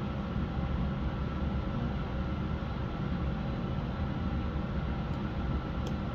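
Steady low rumble and hiss of commercial kitchen machinery running, with two faint ticks near the end.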